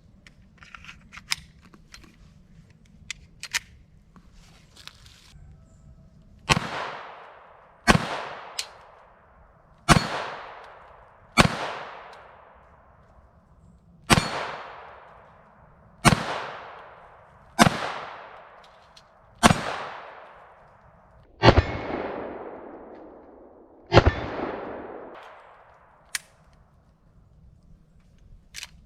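Glock 44 .22 LR pistol fired ten times in slow, steady succession, about one shot every two seconds, each crack trailing off in a long echo. A few faint clicks of gun handling come before the first shot.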